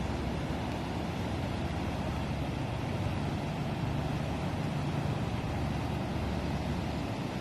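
Floodwater of a swollen river rushing past in a steady, unbroken noise.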